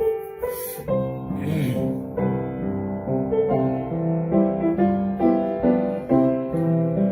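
Piano playing slow sustained chords that change about once a second, as the instrumental lead-in to a gospel song.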